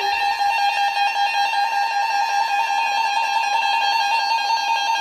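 Emergency Alert System attention signal from a NOAA Weather Radio broadcast: a loud, steady alarm tone of two close pitches sounding together just under 1 kHz, with a fast flutter.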